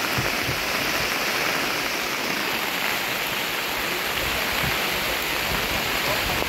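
Heavy rain falling steadily, an even hiss of downpour, with a few dull low bumps now and then.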